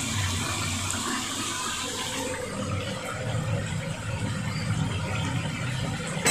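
Beef pieces bubbling and sizzling in masala and yogurt liquid in a large aluminium pot over a gas flame, a steady hiss with a low rumble underneath.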